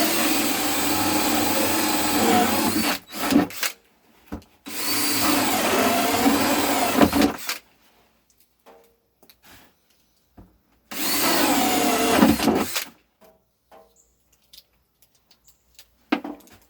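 Electric drill boring holes with a 1-inch bit, run three times for a few seconds each with pauses between, with faint handling clicks in the gaps.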